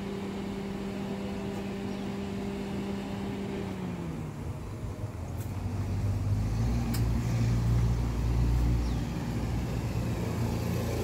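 A motor vehicle engine running: a steady hum that drops in pitch about four seconds in, then a deeper rumble that grows louder over the next few seconds, as of a vehicle moving on the road.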